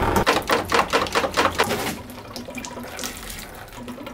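Engine coolant gushing out of a Peugeot 406 coupé's radiator where the lower hose has just been pulled off, splashing loudly for about two seconds and then settling into a quieter steady flow as the cooling system drains.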